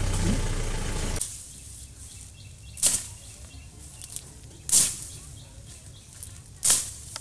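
A steady engine-like hum cuts off about a second in. After it, leafy branches and undergrowth swish against a person pushing through dense brush, three louder swishes about two seconds apart.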